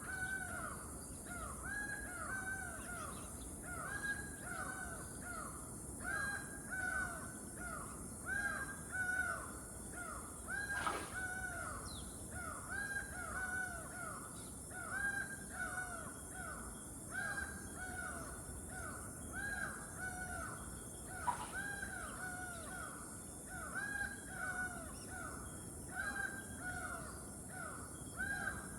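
Loud birds calling across a canal: a dense, overlapping chorus of short, repeated, arched calls that goes on without pause, over a steady high-pitched hiss.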